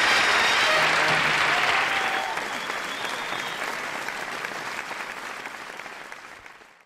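Studio audience applauding, loud for about two seconds and then fading out.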